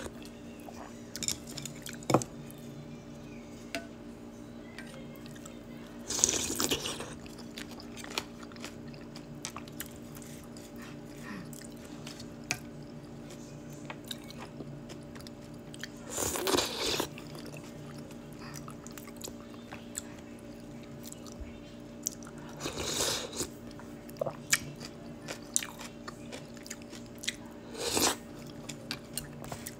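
Eating acorn jelly in broth from a soup spoon: four loud slurps, roughly every six seconds, with soft chewing and small mouth clicks between them, over a steady low hum.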